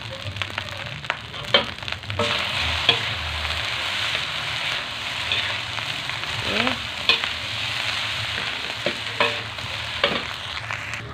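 Fried rice sizzling in a wok while a metal spatula stirs and scrapes it, with sharp clicks of the spatula against the pan. The sizzle grows louder about two seconds in.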